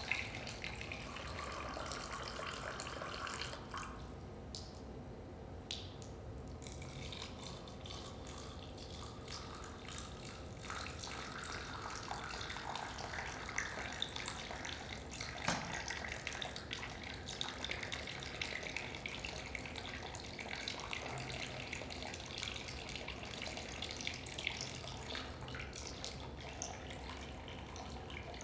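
Water poured from a glass jug in a thin stream into small drinking glasses holding stones, trickling and splashing, thinning out briefly about four seconds in. One sharp tap about halfway through.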